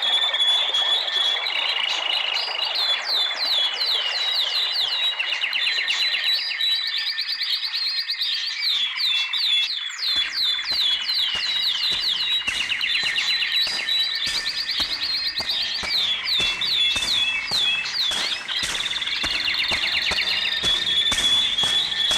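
Birds singing: many quick high chirps that sweep downward, mixed with trills, repeating without a break.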